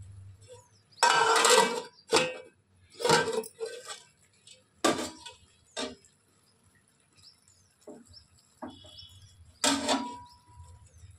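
Cooking pots and utensils clattering and clinking in a series of irregular knocks, about six over the stretch, as the biryani pot is handled.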